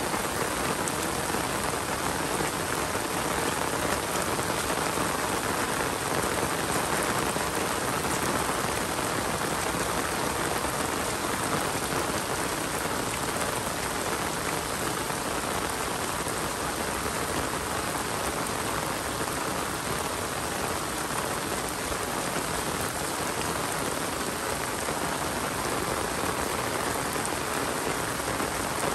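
Steady rain falling and pattering on surfaces, an even hiss without breaks.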